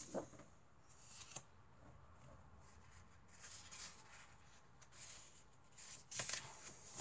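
Sheets of patterned scrapbooking paper being handled and leafed through: faint rustling and sliding, with a few sharper rustles about a fifth of a second in, near a second and a half in, and near the end.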